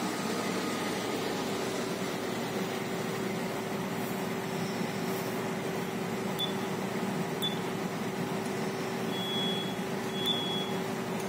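Steady hum of a containership's navigation bridge under way, with a held droning note. Over it come high electronic beeps from the bridge equipment: two short ones, then two longer ones near the end.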